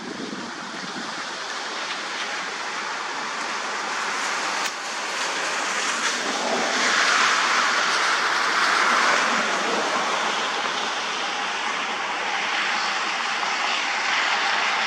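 Fast-flowing floodwater rushing and swirling in a flooded ditch: a steady rushing noise that swells for a few seconds in the middle.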